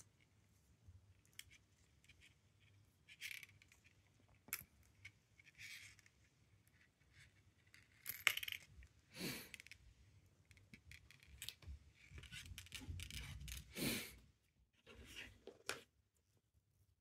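Faint handling sounds of a broken watch mainspring worked between rubber finger cots: scattered light clicks and ticks of the thin steel spring, with soft rubbing and scraping, a few louder handling noises partway through.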